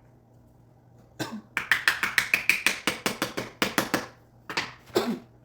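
Quick series of sharp taps or knocks on the parts of a wooden plant stand being fitted together, about five a second for some three seconds, then two more near the end.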